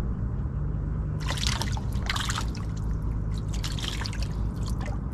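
Water trickling and dripping in a few short bursts as a fishing line and float are lowered into the pond beside a wooden boat, over a steady low hum.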